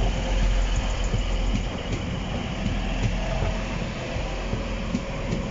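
TransPennine Express Class 185 Siemens Desiro diesel multiple unit, two units coupled, running past close along the platform. A steady, loud rumble of diesel engines and wheels on rail.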